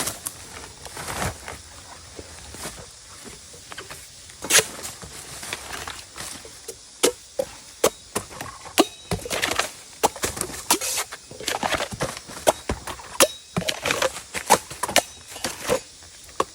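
A blade chopping into bamboo shoots: a run of sharp, irregular chops, some with a short woody ring, coming faster and more often in the second half.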